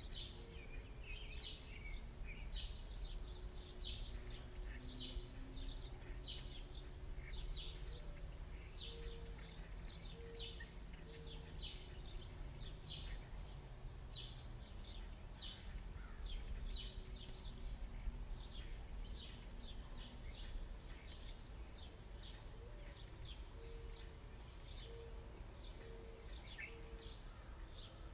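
Small birds chirping continuously, many short high chirps a second, over a low steady background hum. Twice, a short run of four low notes sounds in the middle of the chirping.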